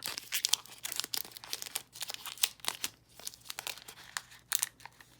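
Foil Pokémon booster pack wrapper crinkling and crackling as it is carefully pried open by hand, trying not to tear it.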